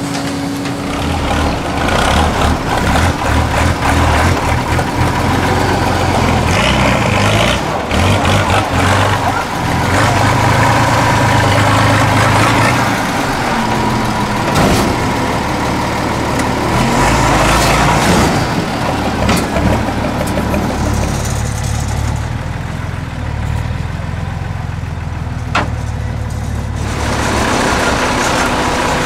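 Diesel engines of heavy off-road trial trucks revving and labouring, the engine note rising and falling in surges.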